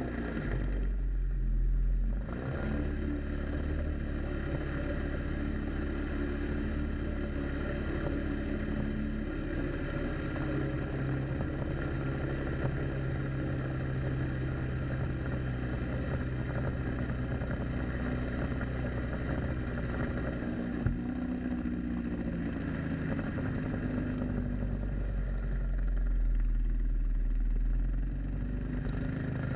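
Outboard jet motor of an inflatable boat running under way, with water rushing along the hull. Its pitch dips and then picks up again about two seconds in, and it runs louder for a couple of seconds near the end.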